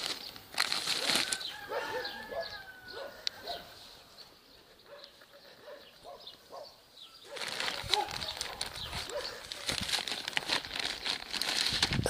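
Thin plastic grow-bag film crinkling and rustling as it is handled. The crinkling is dense at the start, drops to a quieter stretch in the middle, and picks up again about two-thirds of the way in.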